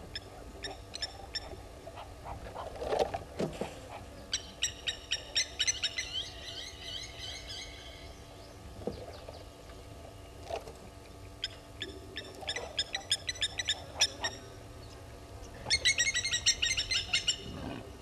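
Blacksmith lapwings calling in rapid runs of sharp, repeated notes, in three bursts, the last near the end the loudest. A lower, softer call sounds about three seconds in.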